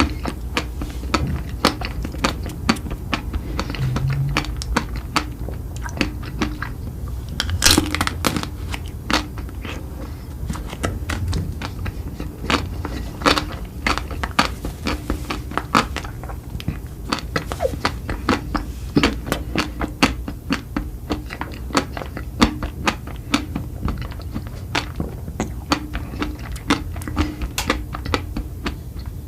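Eating sounds: food being bitten and chewed, heard as irregular crisp crunches and clicks, several a second, with one louder crunch about eight seconds in.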